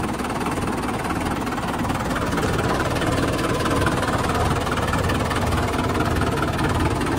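Mahindra Yuvo 575 DI tractor's four-cylinder diesel engine idling steadily. The owner says its fan bearing has failed and the fan has begun to wobble.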